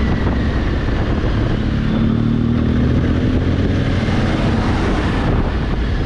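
Honda Africa Twin's parallel-twin engine running steadily under way, its note rising slightly about two seconds in, with wind rushing over the onboard microphone.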